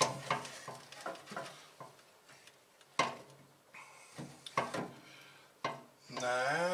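Metal parts clinking and knocking as a steel pedal-assembly bracket is handled and fitted against a car's firewall, with a sharp clink about three seconds in.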